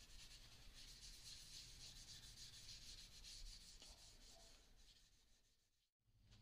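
Faint rubbing of a paper towel over a figured-maple clock body, working in a light coat of polishing paste. The rubbing tapers off after about four seconds and dies away near the end.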